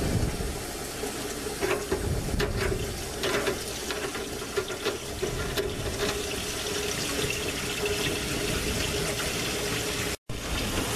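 A full kitchen sink draining through a newly installed basket strainer and PVC tailpiece: a steady rush of water down the drain pipe, heard from beneath the sink. It is the rush-of-water leak test of the new drain. The sound drops out for an instant near the end.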